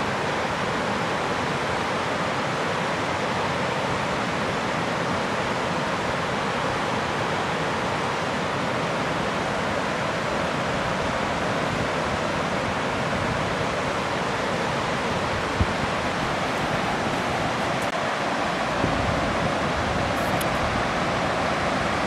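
Fast mountain river rushing over rapids: a steady, even roar of whitewater. From about three-quarters of the way in, a low rumble of wind buffeting the microphone joins it.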